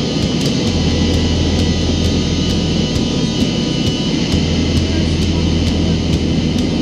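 Steady roar of a jet airliner's cabin during the climb after takeoff, engines and airflow heard from a window seat, with a low drone that fades out and comes back midway.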